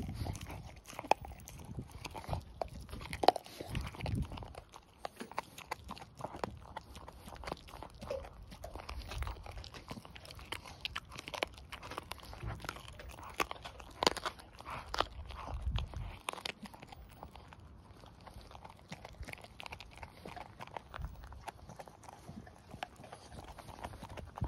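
Staffordshire bull terrier chewing a raw pork trotter: irregular crunches and clicks of teeth on skin and bone, easing off for a few seconds past the middle.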